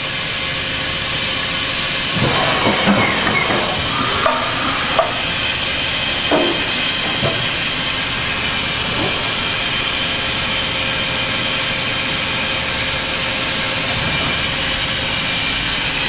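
Okuma & Howa Millac 438V CNC vertical machining center running a program, its spindle at about 2,000 RPM: a steady hiss with a faint steady hum, and a few brief knocks and rattles in the first half.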